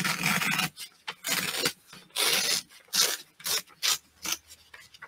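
Sheet-music paper torn by hand along a fold, in a run of short rips.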